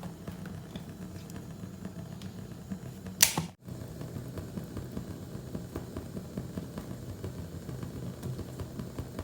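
Kitchen handling sounds: a single sharp clack about three seconds in, then a low steady hum with light, irregular clicking.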